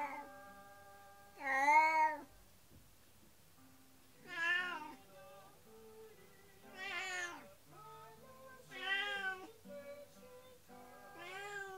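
Domestic cat meowing loudly in long, drawn-out plaintive calls, five of them about every two to two and a half seconds. The cat was left home alone, and the owners take its crying for distress over its companion cat being taken away.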